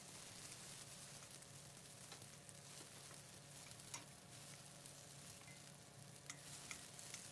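Sliced ginger, shallot, garlic and dried chili sizzling faintly in sesame oil in a stainless steel wok, stirred with a wooden spatula. The spatula gives a few light clicks against the pan.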